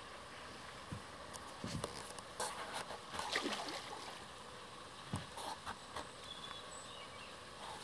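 Water splashing and sloshing close in at the lake edge, a hooked fish swirling at the surface, in short irregular bursts that are loudest a little past the middle, with a few sharp clicks.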